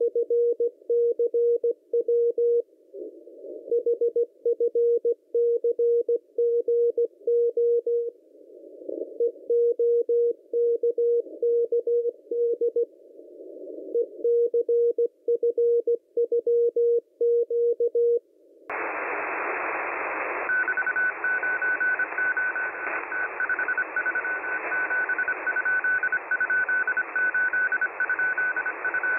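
Morse code (CW) signals heard on a shortwave receiver. First comes a keyed tone of about 500 Hz through a narrow filter, sending the same group over and over with a short pause every four or five seconds. About 18 seconds in, it switches to a higher keyed Morse tone over louder band hiss: a CW signal near 4831 kHz that the listener is pretty sure is a navigational signal.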